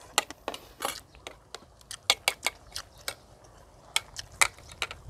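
Spoon and chopsticks clicking and clinking against china plates and bowls during a meal: a rapid, irregular string of small sharp clicks.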